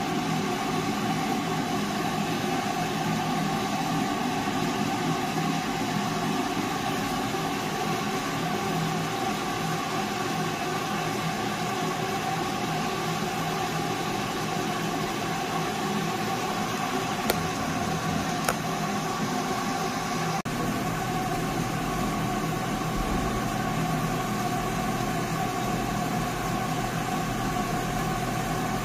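Electric coffee roaster running after the roast has finished: a steady motor-and-fan hum with two held tones over a hiss. Two light clicks about a second apart come midway through.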